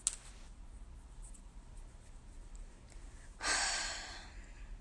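A short click near the start, then about three and a half seconds in a long breathy exhale, a sigh, that fades out over about a second.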